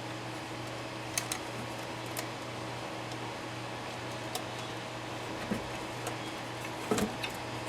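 Small clicks and taps of tools and parts being handled on a workbench, a pair about a second in and the loudest near the end, over a steady low hum.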